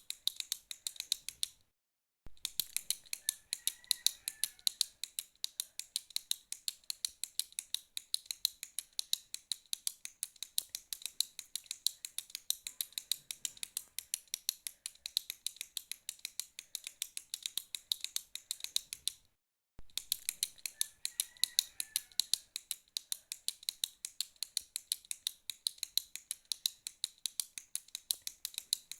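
A retractable pen's push button clicked over and over at a quick, even pace of several clicks a second. Two breaks of dead silence, each about half a second long, interrupt it about 2 seconds in and about 19 seconds in.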